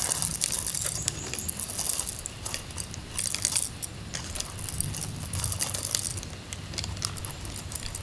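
Irregular light clinks and rattles of small hard objects being handled, over a low rumble.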